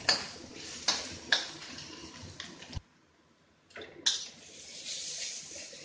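Sliced onions sizzling in hot oil in a metal wok, with a spatula scraping and clacking against the pan three times in the first second and a half. The sizzle breaks off for about a second midway, then carries on.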